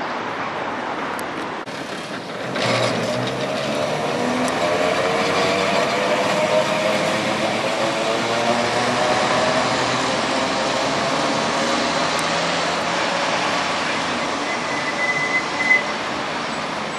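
Vintage electric tram pulling away along its track, its motors whining in a stack of tones that rise slowly in pitch as it gathers speed, with a brief high squeal near the end.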